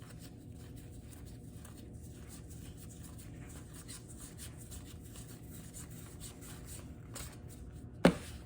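Trading cards being handled and flipped through: faint rustling and light paper ticks, with one sharp click near the end.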